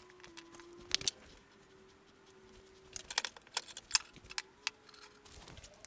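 Faint scattered clicks and light taps of items being handled and set down on a countertop, over a faint steady hum.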